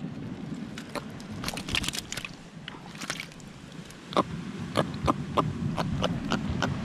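A small jack crevalle being grabbed and handled in shallow water over pebbles and rock: a run of sharp taps and clicks, irregular at first, then a steadier series of about three taps a second in the second half.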